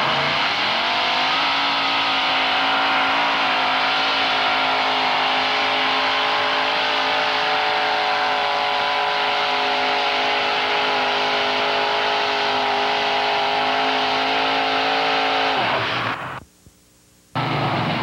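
Engine of a modified pulling pickup truck revving up and held at high revs while it drags a pulling sled, a steady high engine note for about fourteen seconds. The revs fall away near the end, the sound cuts out for about a second, and then another engine running comes in.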